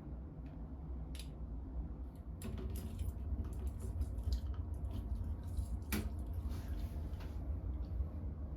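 Light clicks, taps and rubbing of a shower hose's threaded nut being fitted and turned by hand onto a handheld shower head, with one sharper click about six seconds in.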